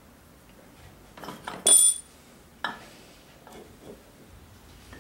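Metal parts of a Mazda 13B rotary engine clinking and knocking against each other as the engine is pulled apart by hand. A few light knocks lead into a ringing metallic clank just under two seconds in, then a sharp knock about a second later and some softer taps.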